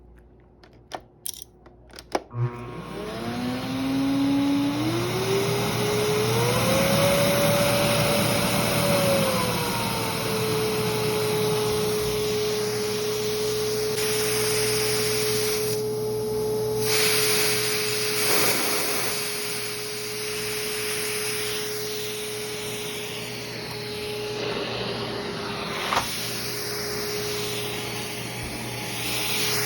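Philips vacuum cleaner switched on with a few clicks, its motor whine climbing in pitch over several seconds, then dropping slightly and settling into a steady run with a constant airflow rush.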